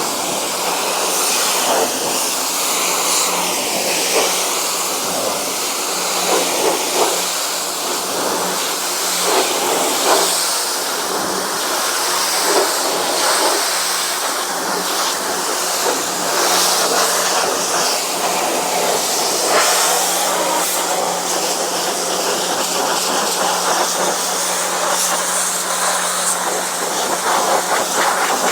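Electric pressure washer running, its motor humming steadily under the loud hiss of the water jet spraying.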